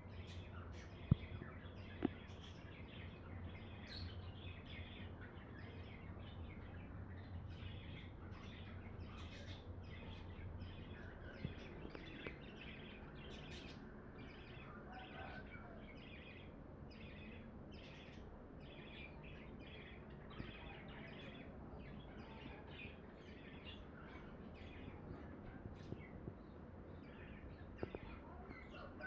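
Small birds chirping in a continuous stream of short, high chirps. A low hum runs under the first ten seconds or so, and there are two sharp knocks near the start.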